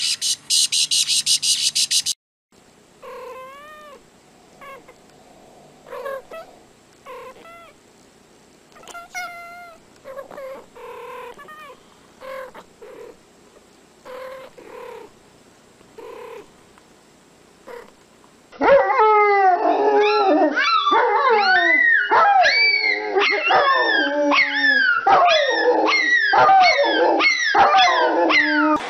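Small domestic animals crying in short calls that rise and fall in pitch: a few scattered cries at first, then from about two-thirds of the way in a loud, dense chorus of many overlapping cries. It opens with a couple of seconds of rapid clicking.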